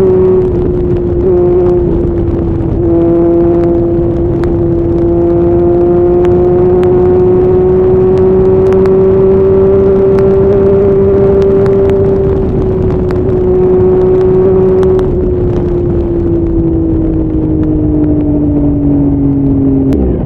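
Motorcycle engine pulling at highway speed. Its pitch dips briefly a couple of seconds in, climbs slowly, then falls steadily over the last few seconds as the bike slows. A heavy wind rush runs under it.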